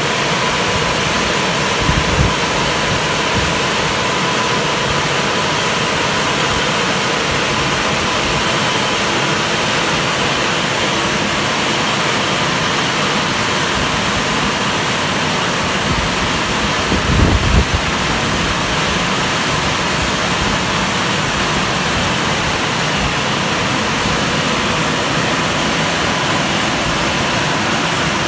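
Dryer blowers of a WashTec SoftWash rollover car wash running, a steady rushing air noise as the gantry travels along the car. A faint steady whine sits under it in the first half, and two brief low thumps come about two seconds in and a little past halfway.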